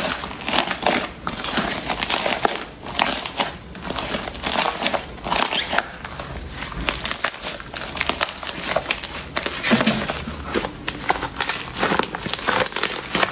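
Slime being squished and kneaded by hand, with dense, irregular crackling and popping.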